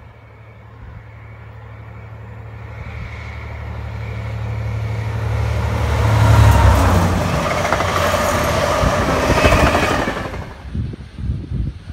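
Class 67 diesel-electric locomotive passing at speed with a rake of coaches. The engine's drone builds to its loudest about six seconds in as the locomotive goes by. The rushing rumble of the coaches' wheels on the rails follows and drops away sharply a little after ten seconds as the train clears.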